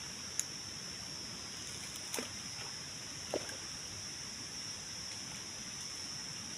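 Steady high-pitched insect chorus in the background, with three brief sharp clicks spread through it.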